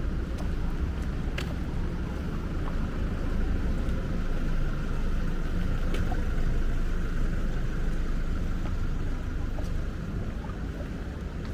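Heavy rain falling steadily over a low rumble, with scattered sharp ticks of drops landing close by.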